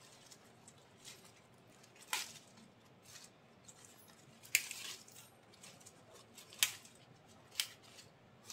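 Tender amaranth (chaulai) stems and leaves being snapped off by hand: about four crisp snaps a second or two apart, with a brief rustle of leaves after the second.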